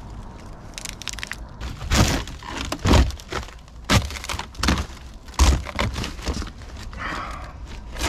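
Rotted boat decking and debris cracking and thudding as a person steps and climbs through a wrecked cockpit: about six loud knocks and breaks in a row, then dry leaves and litter rustling.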